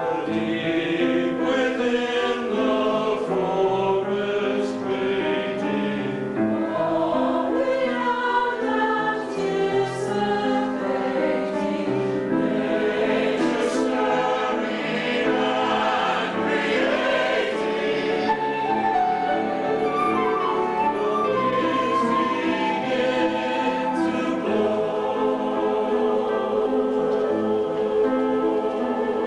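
Choir singing a slow, sustained choral piece, accompanied by piano and flute.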